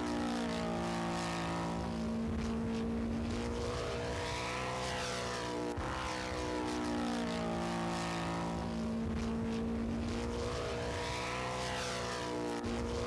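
Model aircraft propeller engines running at steady speed as planes fly past, their pitch rising and falling. The sound changes abruptly about six seconds in and again near the end.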